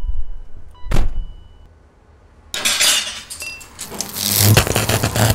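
A car door shuts with a thump about a second in. After a short pause, a rapid, continuous clattering and clanking of metal starts and grows louder.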